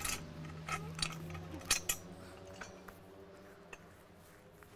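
Metal clinks of a Quik Pull tree puller's steel logging chain and lever handle as the handle is moved to its other position and worked. There are several sharp clinks in the first two seconds, then a few fainter ticks.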